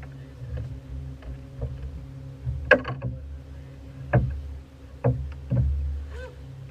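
Boat motor running with a steady low hum, with a few sharp knocks over it: the loudest about two and a half seconds in, then three more between four and six seconds.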